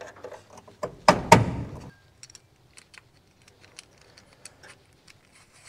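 Two sharp metal knocks about a second in, with a short ring after, then light clicks and taps: a knockout tab and its extra ring being knocked out of a steel electrical box.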